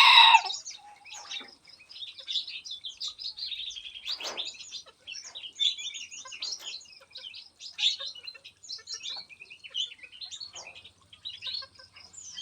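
Many small songbirds in an aviary chirping and calling at once, short overlapping notes throughout. A rooster's crow trails off about half a second in.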